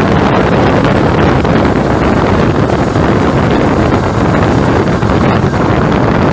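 Steady, loud wind noise buffeting the microphone from a moving car, over the rumble of a diesel freight locomotive running alongside.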